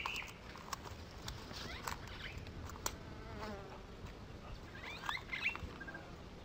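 Faint riverbank wildlife ambience: scattered soft clicks and rustles, a brief flurry of small bird chirps about five seconds in, and short high pips near the end.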